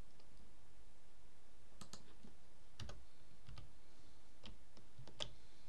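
Scattered clicks of a computer mouse and keyboard, a few short separate clicks spread out at roughly one a second, while code is copied and pasted in an editor.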